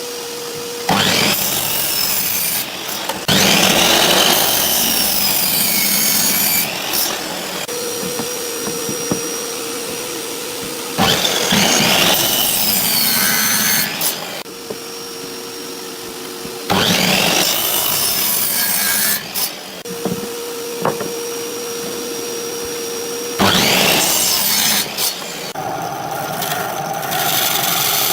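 An electric woodworking power tool running and cutting into wood in repeated loud passes, about five in all, with the motor's steady whine between the passes.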